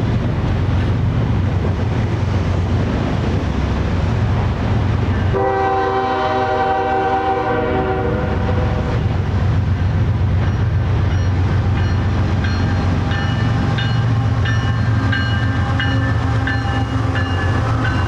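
A passing diesel train: steady engine and rail rumble, with one horn blast of about three seconds a little after five seconds in. From about ten seconds on, thin high squeals come and go over the rumble.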